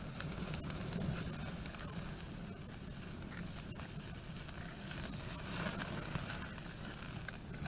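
Campfire burning under grilling steaks: a steady low rush with a few faint crackles.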